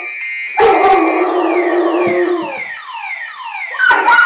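A car alarm sounds, first a steady high tone, then quick falling sweeps about three times a second, while a Weimaraner howls along with it. The howl fades out about two and a half seconds in and starts again near the end, and a sharp knock comes about half a second in.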